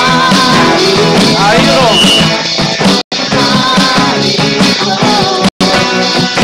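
Live worship band playing: guitars and drums, with voices singing. The sound cuts out for an instant twice.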